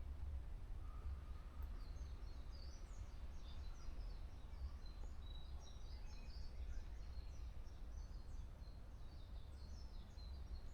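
Small songbirds twittering in woodland, a quick run of short high chirps starting about two seconds in and going on nearly to the end, over a steady low rumble.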